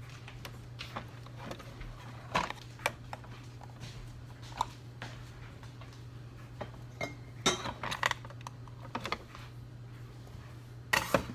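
Scattered light clinks and knocks of dishes and a mug being handled on a kitchen counter, over a steady low hum.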